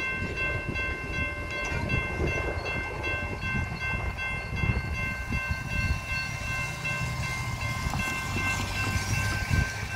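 Railroad crossing bell ringing steadily while the crossing gates rise, with a low rumble underneath.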